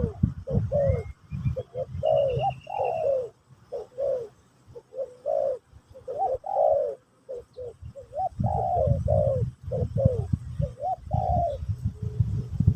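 Spotted dove (terkukur) cooing over and over, in phrases of short, arching low coos. A small bird gives a brief higher chirping about one to three seconds in, and a low rumble sits under the coos near the start and again later.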